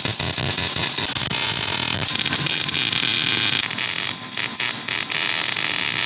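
Arc welder crackling steadily while welding a bracket onto a steel tube go-kart frame.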